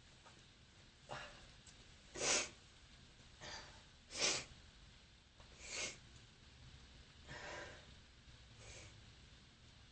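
A person with bronchitis sniffling and breathing hard through the nose after a sneeze: about seven short, noisy breaths spaced roughly a second apart, much softer than the sneeze itself.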